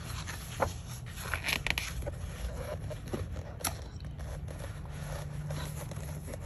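Paper pages of a large art book being turned and smoothed flat by hand: rustling and sliding paper with scattered soft crackles and ticks, over a steady low hum.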